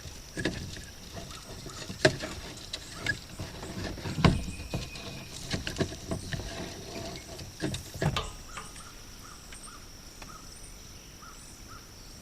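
Scattered knocks and clatter of handling fishing tackle and a fish in a small boat, loudest about two and four seconds in, dying away after about eight seconds. A steady high drone runs underneath.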